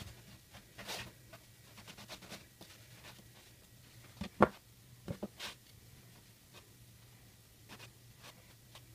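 Long knife sawing through a cake layer on a plastic cutting board: faint, irregular scratchy strokes. A sharp knock about four and a half seconds in, followed by two smaller knocks.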